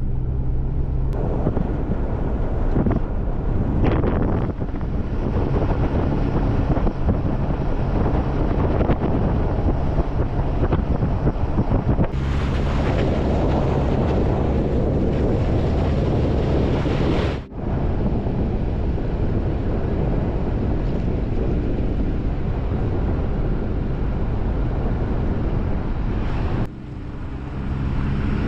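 Jeep driving on a snowy gravel road: engine running steadily under tyre rumble, with wind buffeting the microphone. The sound changes abruptly about 12, 17 and 27 seconds in.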